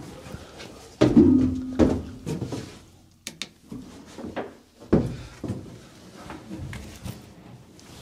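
Knocks and bumps of a person moving about in the back of a Land Rover Defender camper body, with a sharp knock about a second in and more near three and five seconds in.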